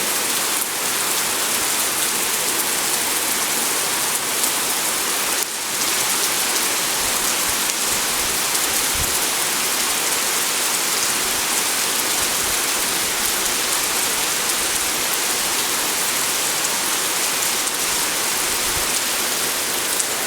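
Steady rain pouring down, a dense, even hiss of drops striking surfaces, with a few faint low thumps.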